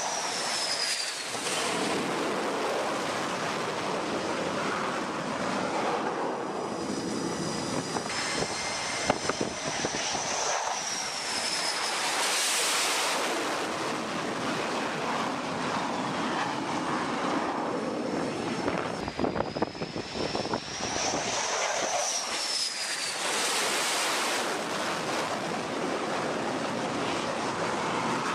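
F/A-18 Hornet-type jet engines running, a continuous jet noise with a high turbine whine that rises and then falls in pitch three times: at the start, about ten seconds in and about twenty seconds in. A few sharp knocks come around nine seconds and twenty-one seconds in.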